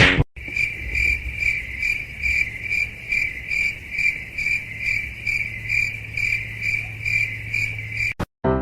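Insect chirping: a steady high trill that swells and fades about twice a second, over a faint low hum. It cuts off abruptly near the end.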